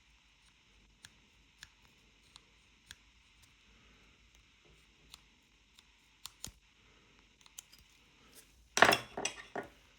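Small metal objects being handled on a work surface: scattered light clicks and taps, then a louder clatter of a few quick knocks near the end.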